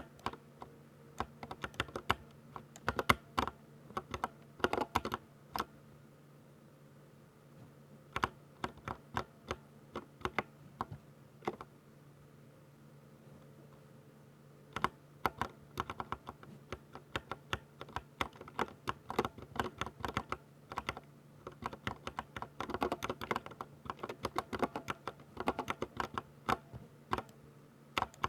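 Fast typing on a 60% mechanical keyboard with Ducky silver switches: quick runs of crisp keystrokes, broken by two short pauses and densest near the end. A faint steady hum sits underneath.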